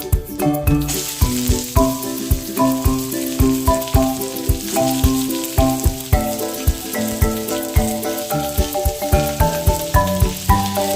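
Food sizzling as it fries in hot oil in a pan, starting suddenly about a second in, under background music with a steady beat.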